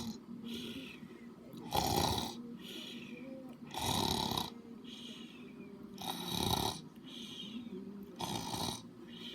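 Loud snoring: a rasping snore about every two seconds, four in all, with quieter breaths between.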